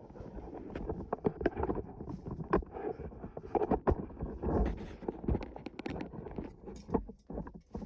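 Irregular knocks and clatter over a rustling noise: cookware and food being handled.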